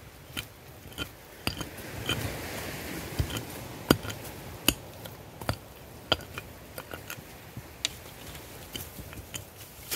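A small hand tool chopping and scraping into soil and roots while a tree stump is dug out. Irregular sharp knocks come about once a second, loudest in the middle, with a brief scraping rasp about two seconds in.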